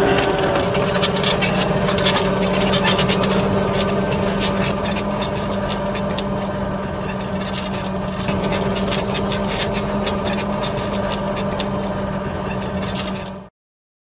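Fendt Vario 724 tractor's six-cylinder diesel running steadily under load while ploughing. The reversible plough and furrow-press packer rings rattle and scrape through the soil over it. The sound cuts off abruptly near the end.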